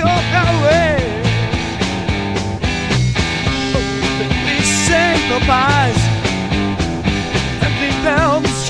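Psychedelic rock music: a lead line with wavering, bending notes, most likely electric guitar, plays over steady bass and drums.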